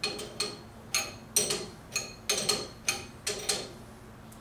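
Small metal parts clinking together: a dozen or so light, irregular clicks with a short metallic ring, as stainless gland nuts and high-pressure tubing fittings on a waterjet pump cylinder are handled and hand-tightened.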